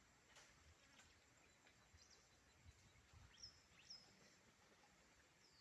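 Near silence: faint outdoor ambience with a few short, high bird chirps, two of them close together about three and a half seconds in.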